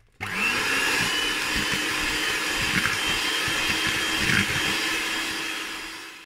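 Electric hand mixer running steadily, its twin wire beaters whipping eggs and sugar in a plastic bowl, starting up just after the beginning. The eggs are being beaten to a pale, foamy cream for a sponge batter.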